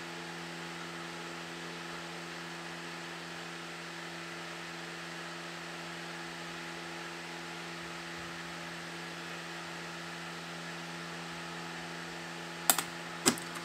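Steady low electrical hum made of a few constant tones over a faint hiss. Near the end come two sharp clicks a little over half a second apart.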